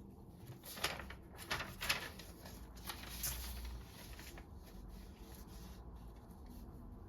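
Note taking with pen and paper: a few short scratchy strokes in the first two seconds, then a longer paper rustle about three seconds in, over a low steady background hum.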